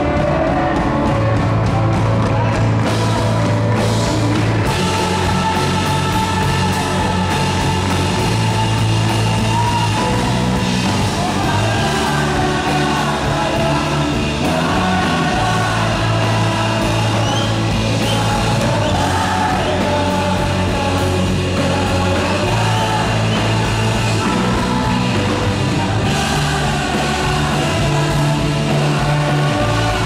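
Live rock band playing a worship song: electric guitar, keyboard and bass under a male lead vocal, loud and continuous through the hall's sound system.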